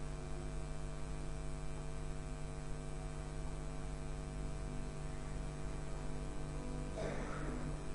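Steady electrical mains hum, with a brief soft noise about seven seconds in.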